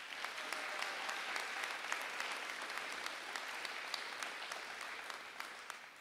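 Audience applauding, many separate claps heard in the clatter, dying away near the end.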